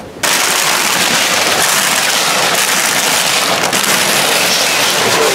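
Crinkly plastic snack bags rustling and crackling as they are pushed around and dug through. The crackle starts abruptly just after the start and stays loud and dense throughout.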